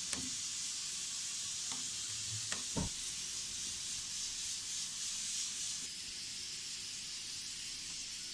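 Ceramic soup spoon stirring in a china bowl of chicken broth, with a few light knocks in the first three seconds, over a steady hiss.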